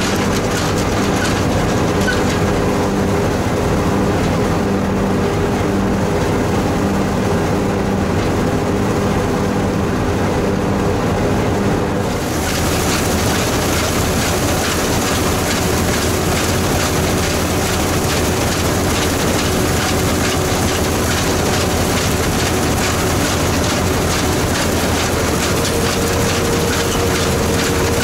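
1983 New Holland combine harvester with its Fiat engine running steadily, heard from inside the cab. About 12 seconds in the noise turns suddenly fuller and harsher as the header and threshing gear take in standing wheat.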